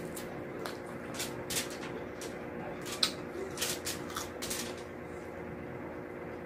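Close-up eating sounds: a string of short wet clicks and smacks from chewing and lips as fried dried milkfish (daing na bangus) and rice are eaten by hand. They come thickest around the middle, over a steady faint hum.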